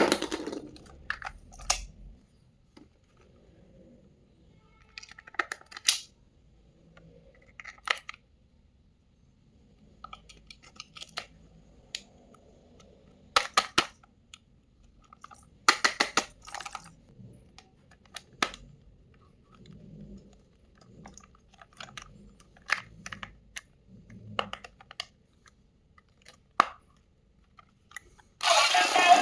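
Intermittent clicks, crackles and rustles of plastic and cardboard toy packaging being handled and opened, coming in short clusters. Loud music starts near the end.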